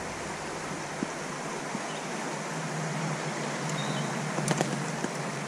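Steady rush of creek water running over rocks, with a few faint clicks about four and a half seconds in.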